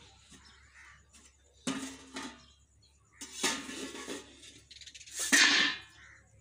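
Steel cooking pots and a lid clattering and scraping in three short bursts, the last the loudest, as hot water is poured off boiled cluster beans.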